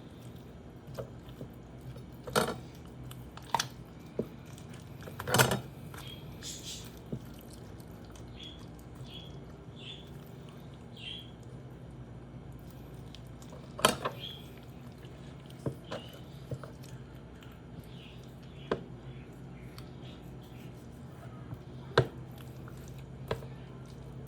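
Raw whole chicken being butchered: scattered sharp knocks of a knife on a cutting board and wet, squishy handling of the meat, over a steady low hum.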